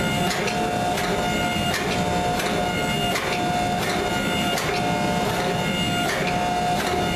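Hydraulic forging press running while it squeezes a red-hot 52100 steel round bar. The pump motor whines steadily, and a short knock comes about every two-thirds of a second as the press cycles.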